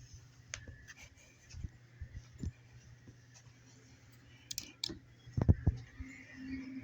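Scattered light clicks, with a louder cluster of knocks about five and a half seconds in, over a faint steady low hum.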